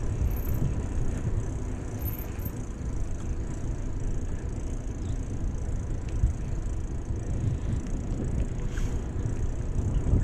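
Riding a bicycle on tarmac: a steady low rumble of wind buffeting the microphone, mixed with the hum of the tyres on the road.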